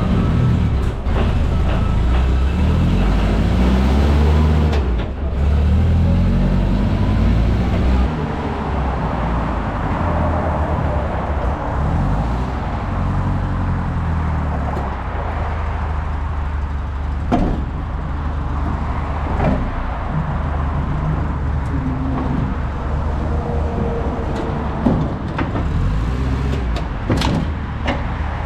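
Motor vehicle engine running: its pitch rises and falls repeatedly for the first several seconds, then it settles into a steady drone, with a few sharp knocks or clunks in the second half.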